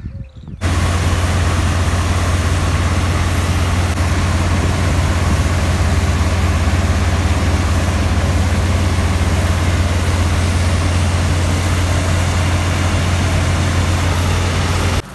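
Combine harvester running while it unloads threshed wheat grain through its unloading auger into a tractor trolley. It is a loud, steady drone with a strong low hum under an even hiss. It starts abruptly just under a second in and cuts off just before the end.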